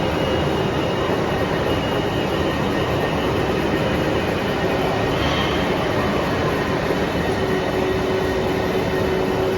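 Hwacheon VT-950 MC CNC vertical turning lathe running: a steady mechanical noise with a faint hum that holds even throughout.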